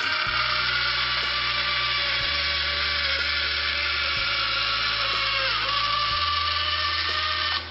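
Vertical bandsaw with a steel wood-cutting blade sawing through aluminum sheet, a steady high grinding hiss. The pitch sags briefly a little after five seconds, then recovers. It breaks off sharply near the end.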